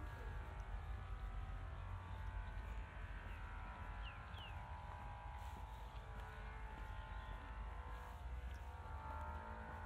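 Faint street ambience with a steady low rumble. Two short high chirps come about four seconds in.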